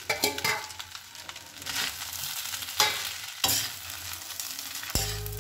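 Steel spatula stirring and scraping fried rice and paneer cubes in a steel kadhai, with a soft frying sizzle and a few metal-on-metal scrapes. A steady low hum starts suddenly near the end.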